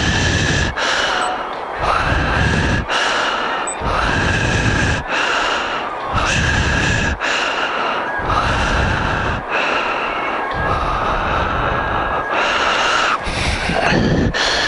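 A person breathing hard and loudly close to the microphone, a steady rhythm of about one breath in and out every two seconds.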